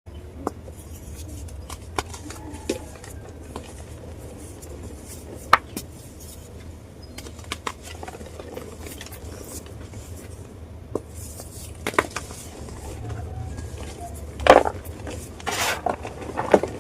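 Soft powdery ice crunching: scattered sharp crackles and clicks, then a few longer, louder crunches near the end, over a steady low hum.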